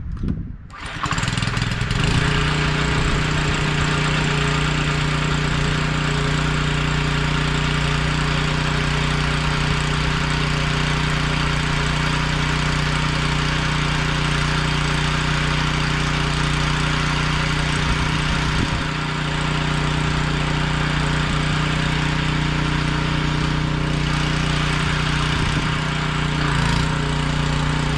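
Small gasoline engine of a pressure washer catching under a second in, then running steadily at an even pitch, its pump not yet supplied with water.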